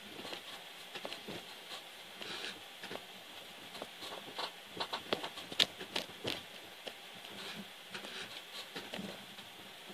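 Old Singer treadle sewing machine stitching slowly, its mechanism making irregular light clicks and ticks, busiest in the middle. The machine runs stiff and dry and needs oiling.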